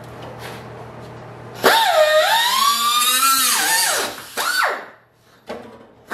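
A high-speed grinder with a cut-off disc cutting through car-body sheet steel, starting about a second and a half in. Its whine sags in pitch as the disc bites into the metal and rises again as it eases off. Two short blips of the tool follow.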